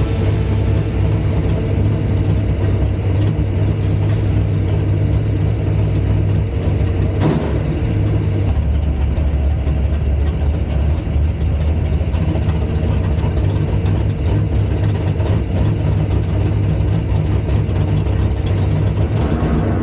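Drag-racing car's big-block V8 idling steadily.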